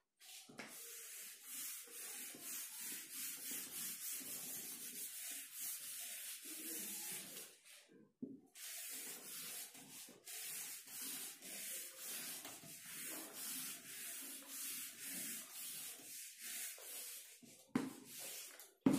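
Whiteboard eraser rubbing across a whiteboard in quick back-and-forth strokes, with a short pause about eight seconds in. A single knock near the end.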